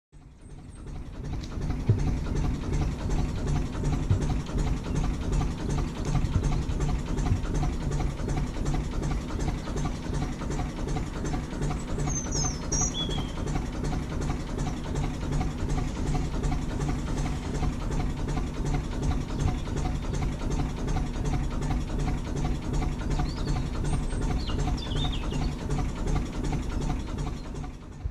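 Narrowboat engine running steadily under way, with a few short bird chirps heard over it, once near the middle and again near the end.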